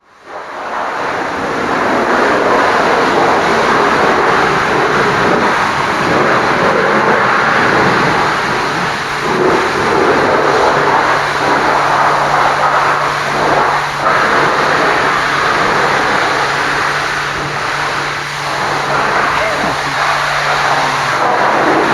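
High-pressure washer jet spraying water, a loud steady hiss, with a steady low hum joining in about eleven seconds in.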